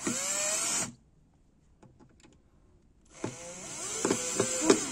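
Bosch GSB 120-LI 12-volt cordless drill driving a screw into pallet wood: a short burst as the motor spins up with a rising whine, a pause of about two seconds, then a longer run with a steady whine and several sharp clicks as the screw is driven in.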